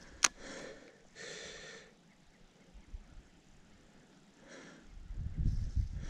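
A sharp click, then two short breaths or sniffs and another a few seconds later; low rumbling starts near the end.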